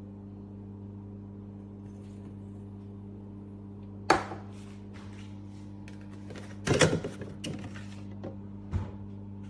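Café Affetto automatic espresso machine humming steadily, with a sharp knock about four seconds in, a burst of clattering knocks around seven seconds, and one more knock near the end as parts are handled.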